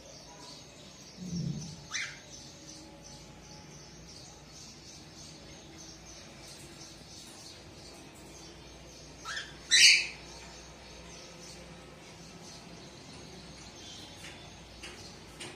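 Cockatiel chirping a few times: one short call about two seconds in, then a louder, sharper pair of calls about ten seconds in. A low thump comes just before the first call.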